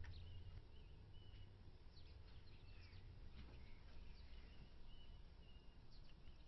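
Faint birds chirping: short high chirps every second or so, with a low steady hum beneath.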